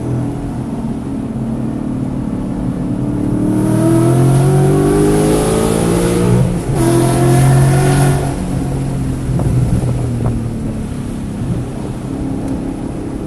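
Car engine under hard acceleration on track, the revs climbing for several seconds, breaking off briefly about six and a half seconds in, then dropping away after about eight seconds. The engine is running with misfires in cylinders 1, 3 and 4.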